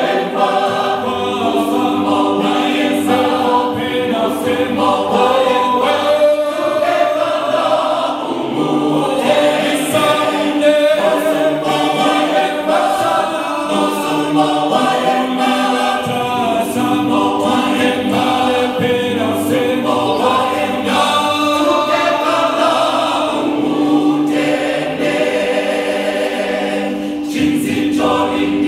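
Mixed choir of men and women singing a gospel song, several voice parts together through microphones, with a long held low note underneath.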